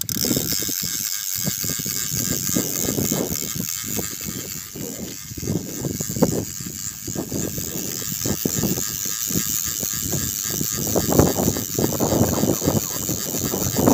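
Spinning reel being cranked steadily, winding in line against a hooked fish that bends the feeder rod, with gusty wind rumbling on the microphone.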